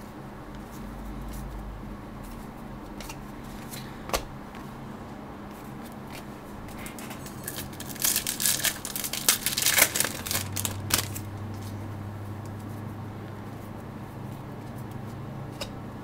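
Trading cards and a foil card-pack wrapper being handled, with a burst of crinkling and rustling about halfway through, over a steady low hum; one sharp click near the start.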